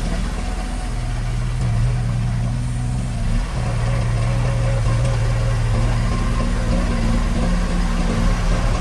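Heavy diesel engine of an earthmoving machine running steadily, its note shifting slightly about three and a half seconds in.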